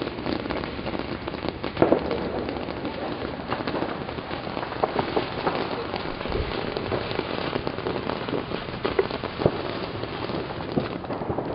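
Steady dense crackling with scattered louder pops.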